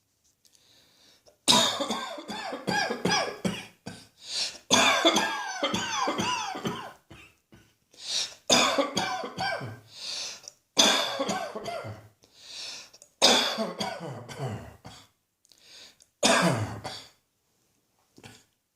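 A person coughing in repeated hard bouts, several coughs to each bout, with the voice sounding through them. The coughing starts about a second and a half in and goes on in about eight bouts with short pauses between.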